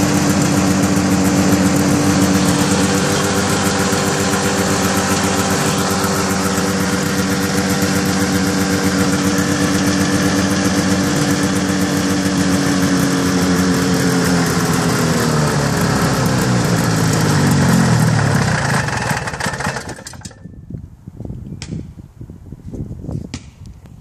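1975 Arctic Cat Cheetah snowmobile's two-stroke engine, on a freshly rebuilt Walbro WF-8 carburettor, idling steadily, then slowing down over several seconds and stopping about twenty seconds in. A few faint clicks follow.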